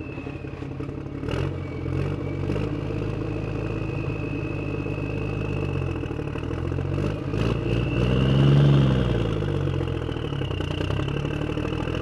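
Vehicle engine idling steadily with a thin high whine over it, revving up and settling back down about eight seconds in, with a few sharp clicks early and again near the middle.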